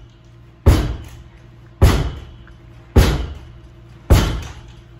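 Baseball wall-ball drill against a pitchback rebounder net: four sharp smacks about a second apart as the ball is thrown, rebounds and is caught in quick rhythm.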